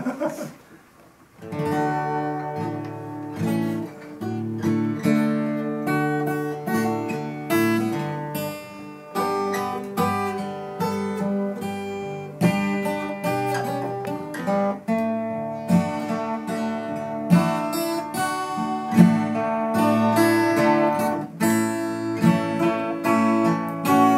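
Two acoustic guitars played together as an instrumental duet, strummed chords and picked notes, starting about a second in.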